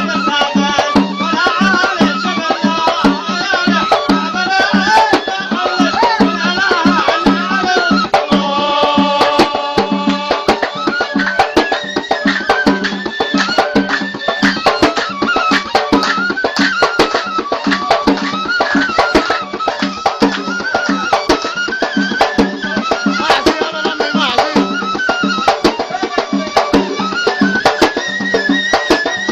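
Yafi folk music: a drum beating a fast, steady rhythm under a ghasba reed pipe playing a wavering, ornamented melody, which holds steadier notes around a third of the way in.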